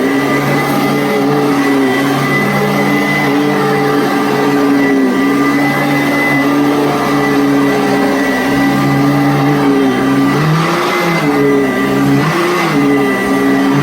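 Commercial vacuum cleaner running with a steady motor whine. Its pitch sags and recovers several times in the last few seconds, with short bursts of rushing air.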